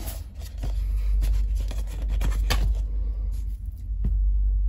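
Light clicks and rustles of hands handling a glass perfume bottle and its cardboard box, over a steady low hum. The handling noises die down about three seconds in, with one more click about a second later.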